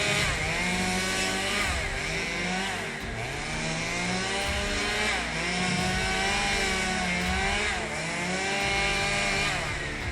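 Chainsaw engine running hard, its pitch sagging several times and climbing back up as the saw is loaded in the cut and revved again.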